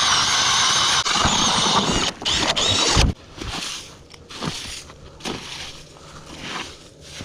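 Powered ice auger drilling a hole through lake ice, a loud high squealing whine that cuts off about three seconds in, followed by quieter scattered scrapes and knocks.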